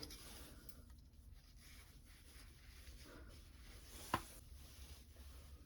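Near silence: faint room hum, broken once about four seconds in by a single sharp click.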